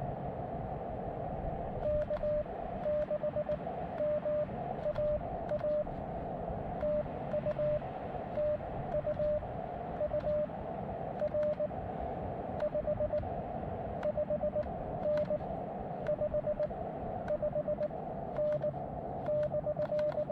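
Morse code on a portable amateur radio: a single steady tone keyed on and off in dots and dashes throughout, over the hiss of the receiver's narrow CW filter.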